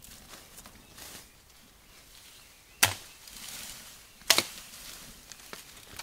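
Machete chopping a thin sapling: two sharp strikes about a second and a half apart, with the leaves rustling after the first.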